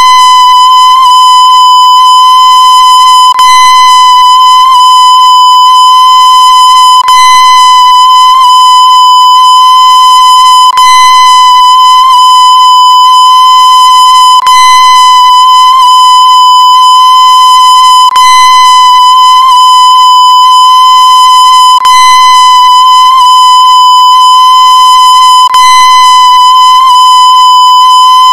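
A loud, steady electronic tone held without a break, harsh with overtones as if distorted, with faint clicks every second or so.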